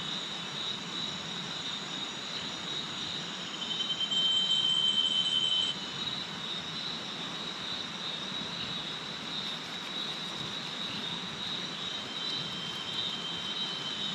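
Forest insects droning steadily in a high, even chorus over a low hiss. A louder, pulsing insect call joins about four seconds in and stops abruptly under two seconds later.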